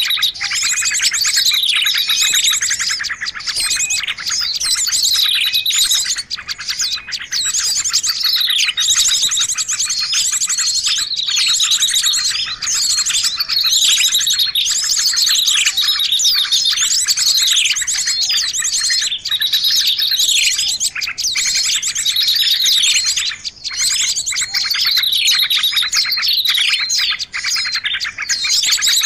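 Small songbirds chirping and trilling without a break: many high, rapid calls overlap, with notes repeatedly falling in pitch. This is a 'pikat' lure recording, made to draw small wild birds in.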